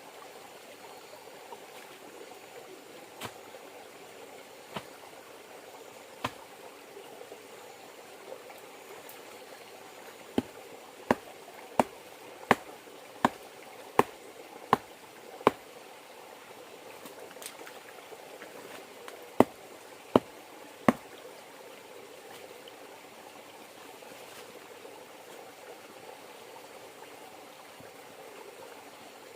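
River water running steadily, with a series of sharp knocks on top: three spaced knocks, then a run of eight at an even beat of about one and a half a second, then three more close together.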